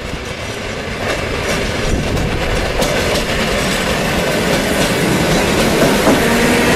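ER2T DC electric multiple unit approaching and passing close by, growing louder, its wheels clicking over the rail joints. A steady hum joins near the end as the cars go by.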